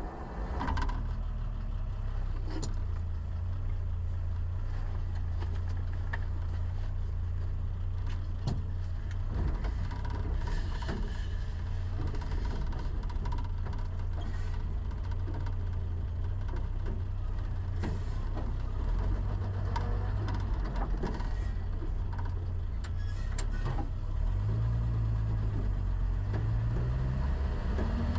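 Engine of an off-road vehicle running as a steady low rumble, with scattered clicks and knocks of body rattle. Near the end the engine note rises in steps as it picks up speed.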